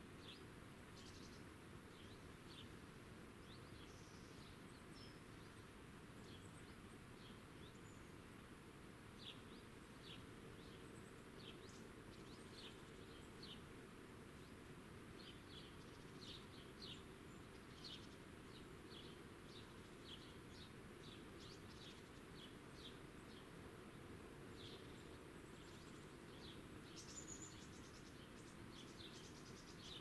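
Near-silent countryside ambience: faint, scattered short high chirps throughout, over a low steady background rumble.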